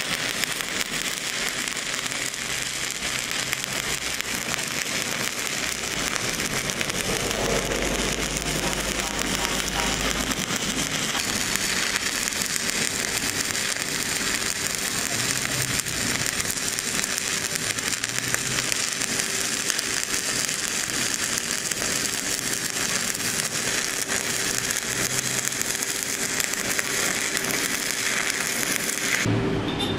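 Stick-welding arc crackling and sizzling steadily as a covered electrode burns along a steel pipe joint, with a faint steady hum under it. It cuts off abruptly near the end.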